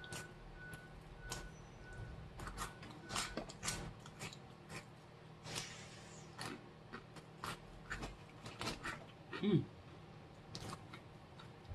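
Crunchy spicy corn snacks being chewed with the mouth close to the microphone: many sharp, irregular crunches, with a brief low vocal sound about nine and a half seconds in.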